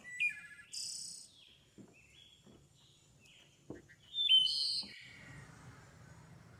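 Birds chirping in short, high calls, loudest about four seconds in, with a few faint knocks in between.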